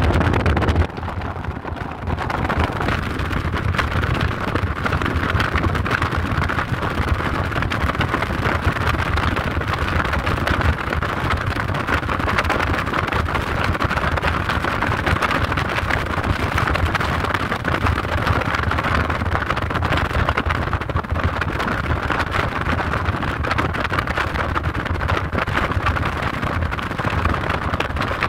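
Steady road noise and wind from a car driving along, heard from inside the car. It drops a little about a second in, then holds steady.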